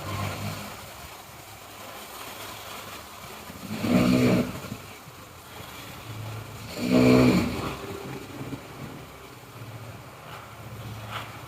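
A person snoring loudly: two loud snores about three seconds apart, with a quieter low rumble between them.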